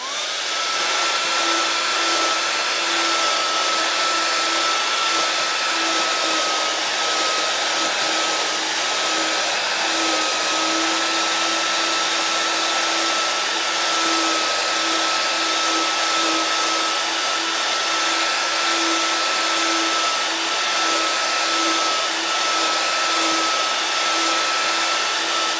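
Handheld hair dryer blowing hot air at a label on a plastic container. It spins up as it is switched on, then runs steadily with a loud rush of air and a constant whine.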